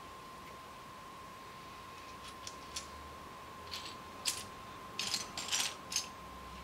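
Loose plastic LEGO bricks clicking and clattering as a hand rummages through a pile of pieces: a few single clicks, then a denser cluster of clicks in the second half. A faint steady high tone runs underneath throughout.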